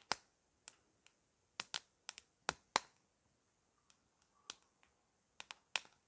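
Small wood fire in a hobo stove crackling: sharp, irregular pops and snaps, a few in quick succession and then short quiet gaps.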